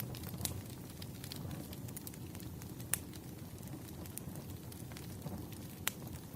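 Campfire crackling: a steady low rush of burning wood with scattered sharp pops, the loudest about three seconds in and again near the end.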